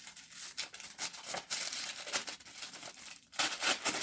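Packaging being torn open and crumpled by hand: irregular crinkling and ripping, with a louder stretch of tearing near the end.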